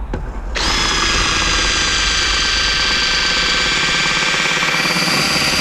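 Cordless drill running steadily at full speed, its motor whining over the noise of the bit cutting the bus's roof panel. It starts and stops abruptly and is widening the cable hole.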